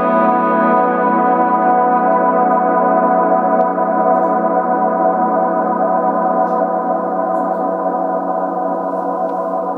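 Electric guitar chord swelled in and held through the Stereo Wet reverb with its modulation set to maximum speed. The chord rings on as a sustained wash with a fast wobble in the tail and slowly fades.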